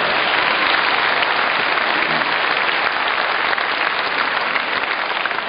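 Large audience applauding: a dense, steady clatter of many hands clapping.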